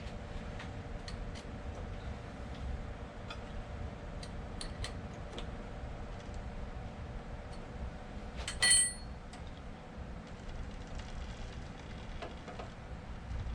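Small metal clicks and ticks from hand adjustment of a milling machine's boring head, over a steady low shop hum. About two-thirds of the way through, one short bright metallic ring, as of a steel tool clinking against metal.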